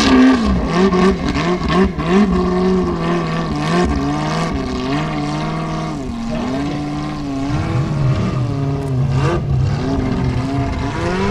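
Formula Offroad unlimited-class buggy's engine revving hard as it climbs a steep dirt slope on paddle tyres, its pitch rising and falling again and again as the throttle is worked.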